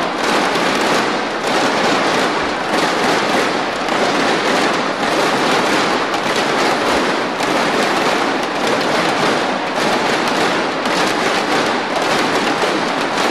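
Large arena crowd applauding at the end of a badminton game: dense, steady clapping that never lets up.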